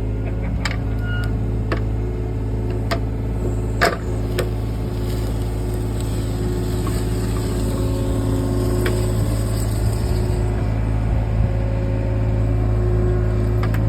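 Engine running steadily with a low drone, with a few sharp knocks in the first four seconds and a faint hiss in the middle.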